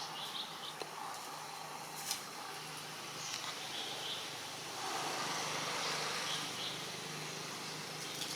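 Outdoor ambience: short high chirps come in small groups every second or so over a steady low hum. A sharp click comes about two seconds in, and a broader rushing swell builds about five seconds in.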